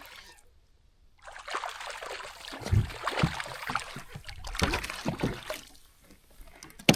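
Water splashing and trickling in uneven spurts, with a few low knocks mixed in.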